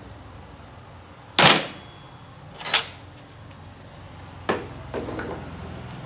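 Metal hand tools such as wrenches clanking as they are put down among other tools, four separate knocks, the loudest about a second and a half in and one with a short metallic ring after it.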